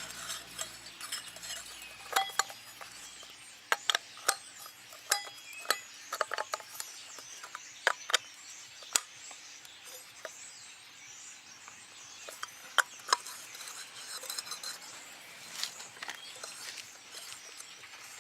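Metal wrench clinking and tapping on the bolts of a children's quad bike wheel as they are tightened: irregular sharp clinks, some in quick runs of several.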